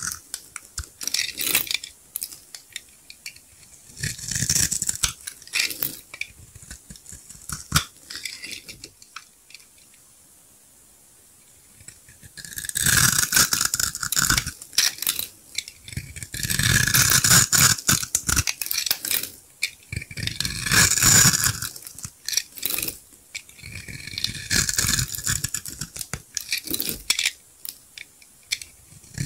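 Utility knife blade cutting through a grid-scored bar of dry soap, the small soap cubes crunching and crackling as they break off. It comes in bursts of a few seconds, with a pause of about three seconds near the middle.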